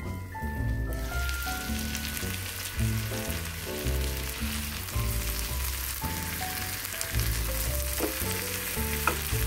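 Tandoori-marinated chicken frying in oil in a pan, the sizzle jumping up suddenly about a second in as the lid comes off, then holding steady. Near the end the tongs click twice against the pan as the pieces are turned. Background music plays throughout.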